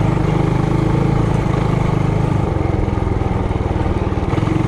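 Trailmaster Hurricane 200X mini bike's single-cylinder four-stroke engine running under way, a steady rapid putter that eases slightly past the middle and picks up again near the end.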